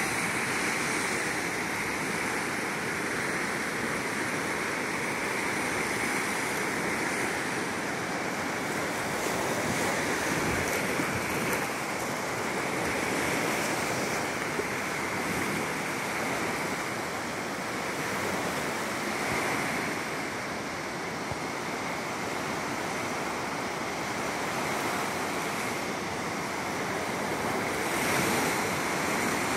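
Lake Ontario waves breaking and washing up onto a sandy beach: a steady rush of surf.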